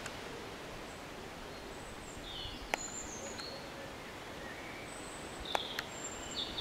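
Small birds chirping now and then over a steady background hiss, with a few sharp clicks, one about three seconds in and two close together near the end.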